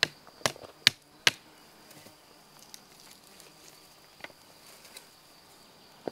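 Hand-held stone used as a hammer, striking four times in quick succession about half a second apart, then a few faint taps. A steady high insect buzz goes on underneath.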